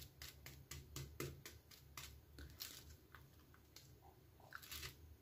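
Faint crackle of a crisp fried besan-battered potato tikki's crust as fingers press and tap it, a run of small crunchy clicks that thins out after about three seconds; the crackling is the sign of a crisp fry.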